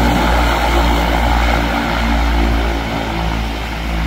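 Cessna Caravan floatplane's turboprop engine and propeller running steadily as it taxis on the water, a loud even drone that eases slightly near the end as the plane moves away.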